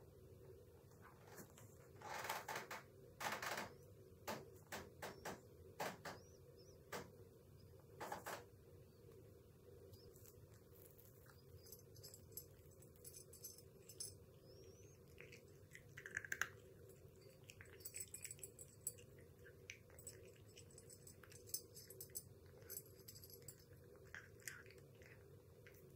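Near silence with a cat eating from a ceramic bowl: faint small clicks and ticks against the dish. A few louder clicks and rustles come in the first several seconds.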